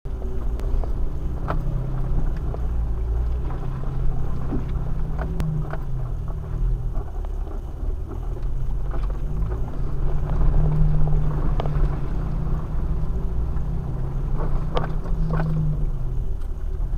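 Off-road vehicle's engine running at low trail speed, a steady low drone with a wavering hum, heard from inside the cab. Short knocks and rattles come through now and then as it crawls over the rutted, muddy trail.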